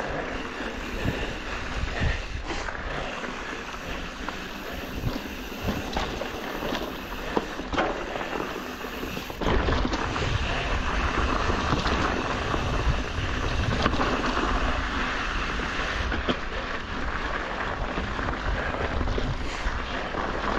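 Mountain bike riding an off-road trail: tyre noise with frequent knocks and rattles over bumps, and wind buffeting the microphone, louder from about halfway through.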